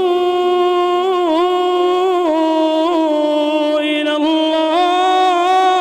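A man reciting the Quran in melodic tajwid style, drawing out one long held note with slow ornamental turns in pitch, then stepping up near the end.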